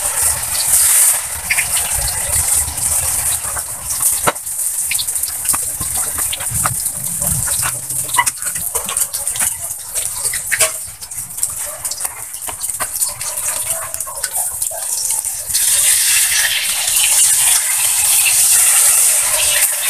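Banana-pith omelette frying in hot oil in a wok over a wood fire: a steady sizzle with scattered sharp crackles. The sizzle gets louder near the end, as the omelette is turned with a spatula.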